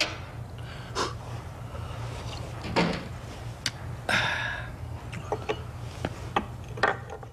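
Two small shot glasses clink once in a toast, followed by sharp breaths and sniffs after the drink and a few small knocks and clicks, over a steady low hum.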